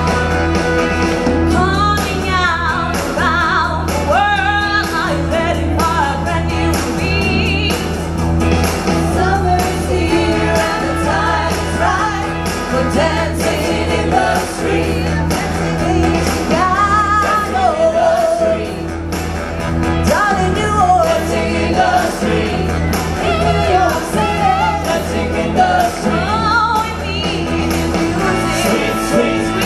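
Live stage show: a vocal group singing a pop song into handheld microphones over amplified backing music with a steady beat.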